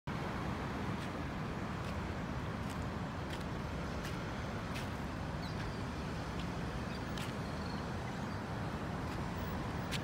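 Steady road traffic noise, with faint sharp clicks scattered through it.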